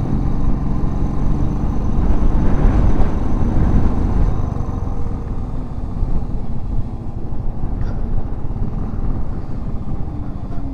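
Royal Enfield Thunderbird's single-cylinder engine running steadily as the motorcycle rides along, under heavy wind rumble on the microphone that swells about two to four seconds in.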